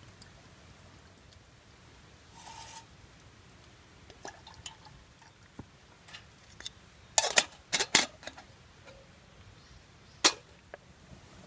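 Sharp metallic clinks and knocks from a small aluminium camping kettle being handled and set down on a steel mesh table: a short scrape early, a quick cluster of loud clinks past the middle and one more near the end.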